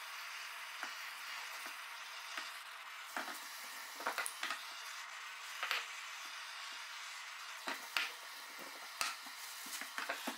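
Small handheld butane torch hissing steadily as its flame is played over a wooden axe handle, with scattered sharp clicks and crackles.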